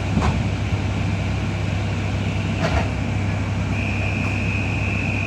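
Steady engine hum and road noise inside a moving New Routemaster hybrid double-decker bus, heard from the upper deck, with two short knocks. About four seconds in, a steady high whistle starts and holds.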